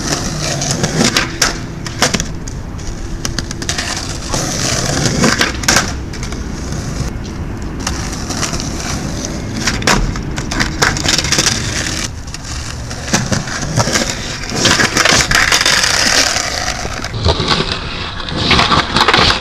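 Skateboard wheels rolling on rough concrete, with repeated sharp clacks and knocks as the board strikes the pavement and curb during tricks.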